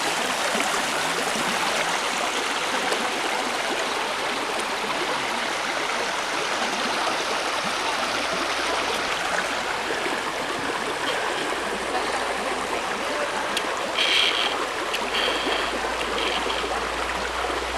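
Rushing water of a mountain creek spilling over a waterfall into a swimming hole, a steady, even rush.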